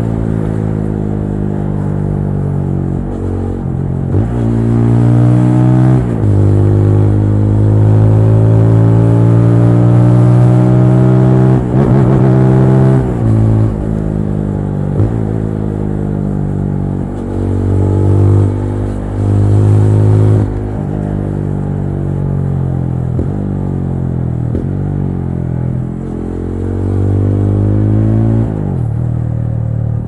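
TVS Apache RTR 200 4V's single-cylinder engine on a ride. Its pitch climbs as it accelerates, then drops sharply at each gear change or throttle lift, about ten times over the stretch.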